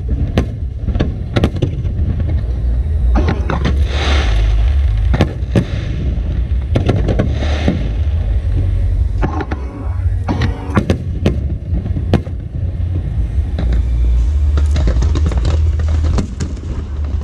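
Aerial fireworks bursting in quick succession: a string of sharp bangs with stretches of crackling, over a constant deep rumble.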